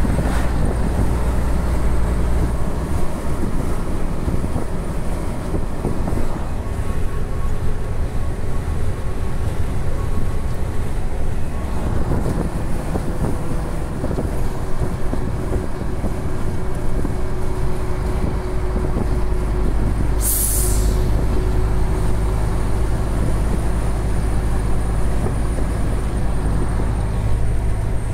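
Truck engine and road noise heard inside the cab while driving: a steady, unbroken drone. A brief hiss comes in about two-thirds of the way through.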